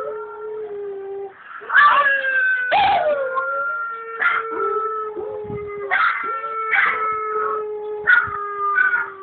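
Small dog howling along with its own recorded howls playing from a laptop. The howls overlap in a string: each starts sharply, then holds and slowly sinks in pitch, with a new one about every second or so.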